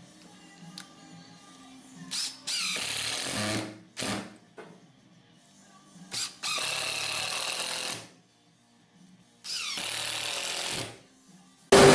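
Makita cordless impact driver driving long screws into chipboard: three runs of one to one and a half seconds each, every one led by a short trigger blip, the motor pitch rising as it spins up.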